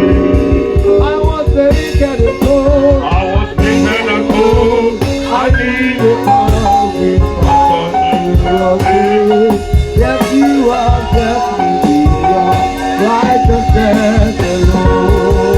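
Live gospel worship music: a band with a drum kit keeps a steady beat under held melody notes and singing.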